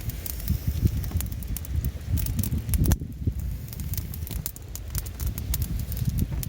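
Wood fire crackling with sharp, irregular pops, over an uneven low rumble.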